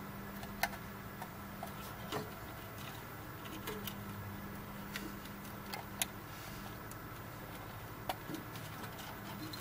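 Small plastic wire connectors being pushed by hand into the sockets of a replacement CD laser unit: a handful of sharp clicks at irregular intervals with light handling of the leads, over a faint steady hum.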